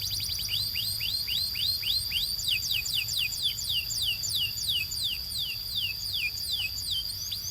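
Canary singing: a rapid series of short notes, each sweeping downward, about three a second, over a high, steady held note.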